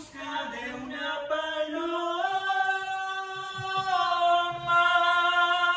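A single voice singing unaccompanied, long held wordless notes, the pitch stepping up about two seconds in.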